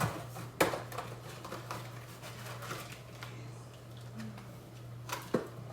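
A plastic bag crinkling and rustling as floured pork chops are handled in it, with a sharp knock about half a second in and another near the end, over a steady low hum.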